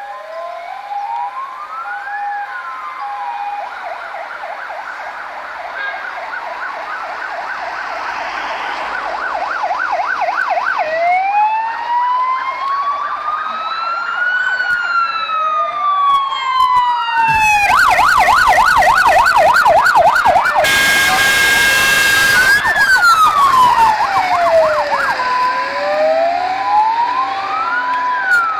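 Two fire engines, a Star and a Mercedes-Benz 1234, approach and pass with electronic sirens cycling through slow wail, fast yelp and two-tone hi-lo, the sirens overlapping and growing louder as the trucks near. A loud horn blast of about two seconds comes a little past the middle, over the trucks' engine and road noise as they go by.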